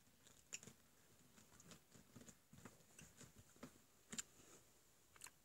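Near silence with faint, irregular small clicks and light rustles, about a dozen spread unevenly through the few seconds.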